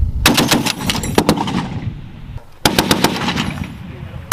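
M2 .50 caliber heavy machine gun firing two short bursts, about a second long and then half a second, at roughly eight shots a second.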